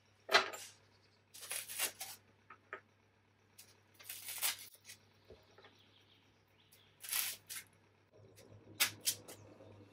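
Small metal hinges pushed into a block of polystyrene foam: a handful of short, scratchy squeaks and scrapes, a few seconds apart.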